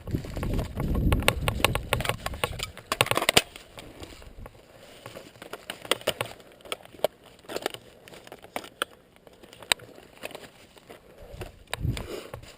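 Rustling and rubbing against the microphone with a cluster of sharp crackles and clicks in the first few seconds, then scattered irregular clicks and snaps, like footsteps moving through dry undergrowth.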